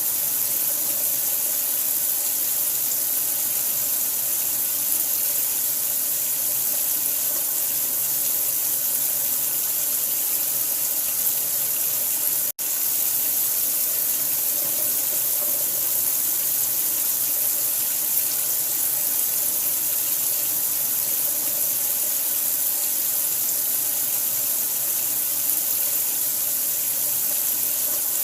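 Steady running water, an even hiss strongest in the high treble. It is broken once, about twelve and a half seconds in, by a split-second gap.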